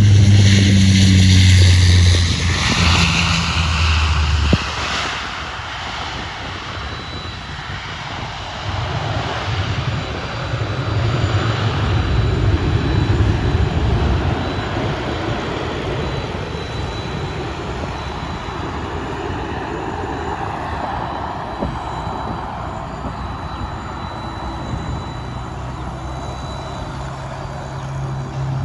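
Airplane engine noise from a passing aircraft: loudest in the first few seconds with a whine falling in pitch, then a steady rushing rumble that swells again and eases off.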